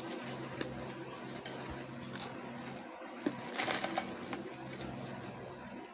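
Handling of a Lay's Stax chip can: rustling and crinkling of the can and its peeled-back foil lid as a hand reaches in for chips, with a louder crinkle about three and a half seconds in. A steady low hum runs underneath.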